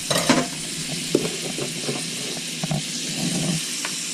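Butter sizzling in a hot frying pan, a steady hiss, with a few light knocks and clicks of a utensil against the pan.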